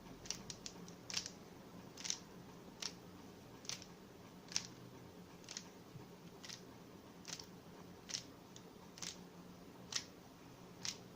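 Plastic Rubik's Cube layers being turned by hand, faint sharp clicks at about one a second, with a quick run of clicks at the start, as a corner-orienting algorithm is repeated.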